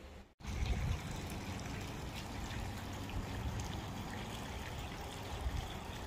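Steady trickling water with a low rumble underneath, starting abruptly about half a second in.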